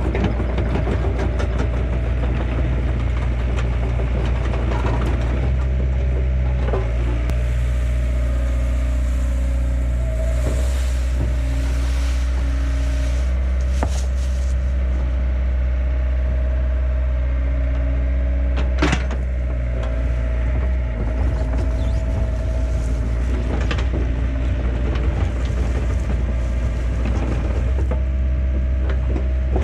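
Mini excavator's diesel engine running steadily, with a few sharp metallic knocks now and then.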